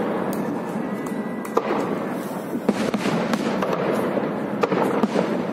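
Aerial fireworks shells bursting: sharp bangs about once a second over a steady din of crackling.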